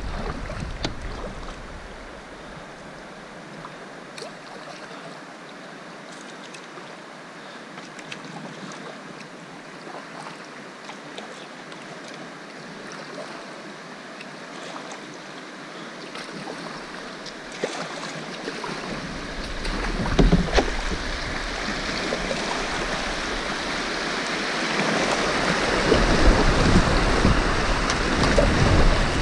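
Rushing river water around a kayak: a soft flow with a few light knocks at first, then swelling over the last ten seconds into the steady rushing hiss of a small rapid as the kayak runs through whitewater.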